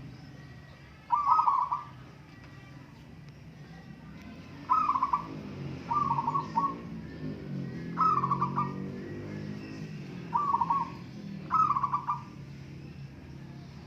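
Zebra doves (perkutut) cooing: six short, pulsed coo phrases come at irregular gaps of one to two seconds, over a low steady hum.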